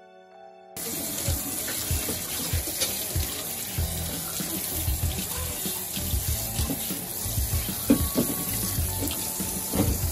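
Kitchen tap running into a stainless-steel sink, the stream splashing over a whole fish held under it while it is rinsed, with occasional low thuds of handling. The water starts suddenly under a second in.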